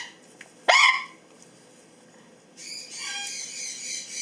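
Pet bird squawking while held for a toenail trim: a short call rising sharply in pitch under a second in, then a longer harsh, raspy screech from about two and a half seconds in.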